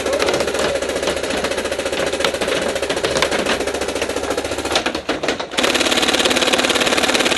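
Tippmann Phenom paintball marker with an X-Board trigger firing long full-auto strings, a rapid, even rattle of shots. The firing breaks briefly just after five seconds, then another sustained string follows.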